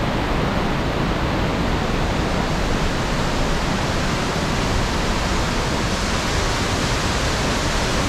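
A waterfall's rushing water: a loud, steady, even hiss with no breaks.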